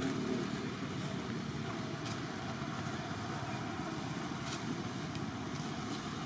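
Steady low rumbling background noise, with two faint short ticks about two and four and a half seconds in.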